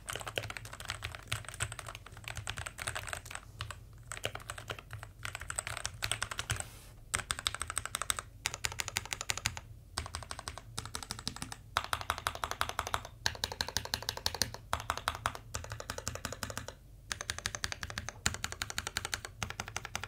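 Typing on an Azio Tera 75 mechanical keyboard with Gateron brown switches, a well-dampened board. Its key clacks come in quick runs with a few short pauses, as normal typing gives way to single presses on keys around the edge of the board.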